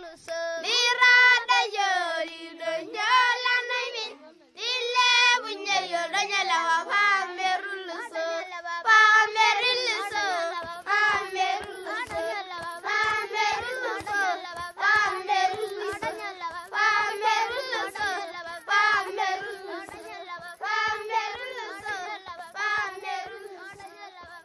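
Children singing a song in high voices. About nine seconds in, a steady beat of about two strokes a second joins the singing.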